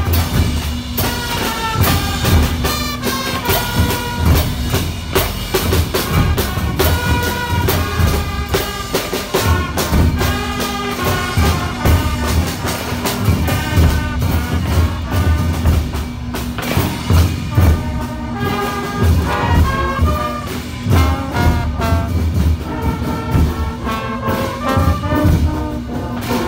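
Live marching brass band playing: trumpets and sousaphones carry the tune over snare drums, clashing cymbals and a bass drum beating time.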